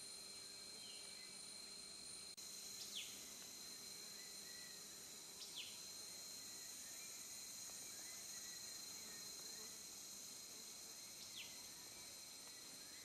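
Steady, faint high-pitched insect drone of forest ambience, with three short, sharply falling whistled notes spread through it.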